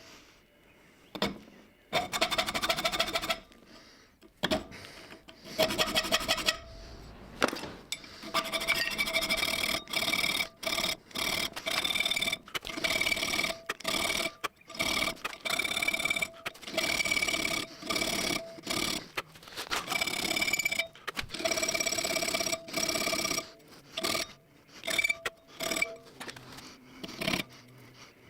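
Hand tool worked back and forth over the steel blade, rasping strokes in spurts with short pauses and a ringing note from the metal under each stroke.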